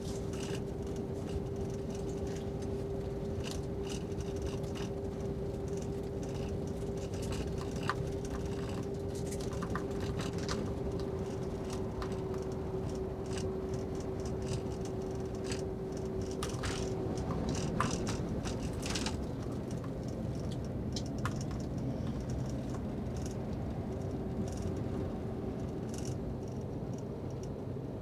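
Cabin noise of a JR double-decker highway bus cruising on an expressway: a steady drone of engine and tyres with a steady hum, and scattered light rattles and ticks from the interior. The hum drops away just over halfway through and comes back near the end.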